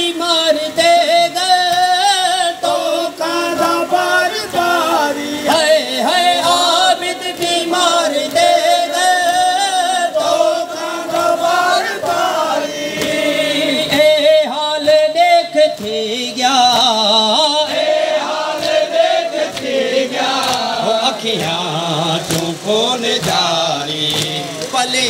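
Shia mourners chanting a noha lament, a lead voice with men singing along, over rhythmic slaps of matam (chest-beating). The singing breaks off briefly about halfway through, then resumes.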